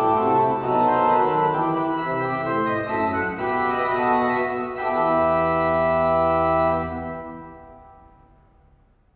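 The Joseph Adrian Potier pipe organ of 1758–59 playing a passage that ends on a held final chord over a low bass note; the chord is released about two seconds later and fades away.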